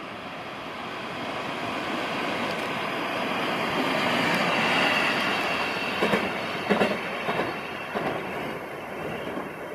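A single-car JR West 125 series electric railcar passing at speed. Its rolling noise builds to a peak about halfway through, then a few sharp wheel clacks over the track come as it moves away.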